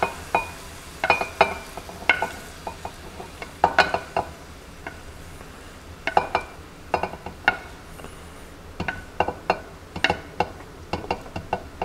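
A utensil clinking and scraping against a pan and a glass bowl in quick, irregular taps, each ringing briefly, as browned chicken and sausage pieces are moved into the bowl.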